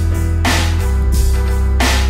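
Boom-bap hip hop beat with no vocal: a deep steady bass, held chords, and two snare hits about a second and a half apart.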